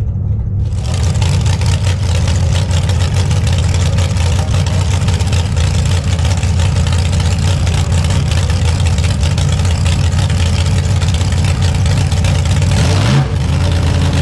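Rail dragster's engine running loud and steady at idle while the cars line up to stage; it cuts in abruptly just under a second in.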